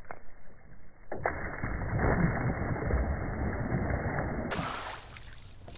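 Cast net landing on shallow water: a sudden slap about a second in, then a loud spattering splash that runs on for a few seconds as the net spreads and sinks, dropping back to quieter clicks near the end.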